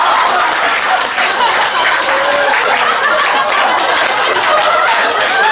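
Audience laughing and clapping loudly together, with scattered voices laughing and calling out through the applause.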